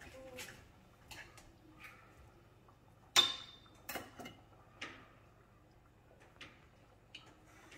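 Fork and knife clicking against a plate while cutting into a piece of chicken: a string of light clinks, the sharpest and loudest one ringing briefly about three seconds in.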